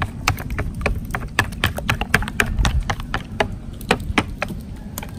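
Duck egg yolks being beaten in a bowl: a utensil rapidly clicking and tapping against the bowl, several irregular clicks a second.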